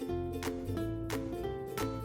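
Background music: bright plucked ukulele or guitar chords over a bass line and a steady beat.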